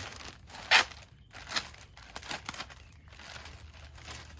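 Rustling and crinkling as ceramic exhaust-packing material is handled and pulled apart, with a sharp rustle about a second in and softer rustles after.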